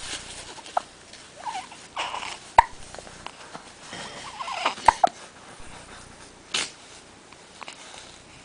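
Eight-day-old baby hiccupping: two sharp hics a little over two seconds apart, with small squeaky baby noises between.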